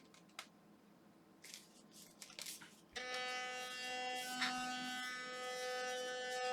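A few faint handling clicks, then about three seconds in a Philips Sonicare DiamondClean electric toothbrush switches on and runs with a steady, even buzz. The repaired brush is working again.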